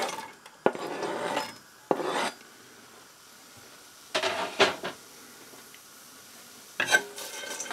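Diced onion scraped off a plastic chopping board into a stainless steel saucepan and pushed around in the pan with a utensil, in a few short scraping strokes with pauses between.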